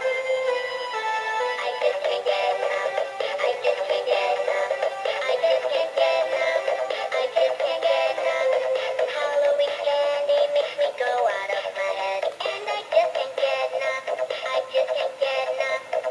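Animated Halloween plush bear in a pumpkin costume playing its song through its built-in speaker: a synthetic singing voice over music, thin and without bass.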